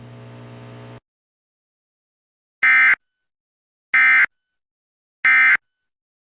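Three short data bursts from a NOAA Weather Radio broadcast: the SAME end-of-message code, a raspy digital warble sent three times about 1.3 s apart, which marks the end of the alert. Before the bursts, faint radio hiss and hum cuts off about a second in.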